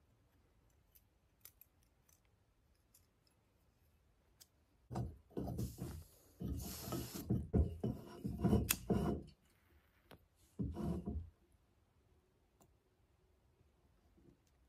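Metal scraping and clicking from a small backpacking canister stove being screwed onto its gas canister and having its folding pot supports opened. After a few quiet seconds there is a run of scrapes and clicks, then one more short burst.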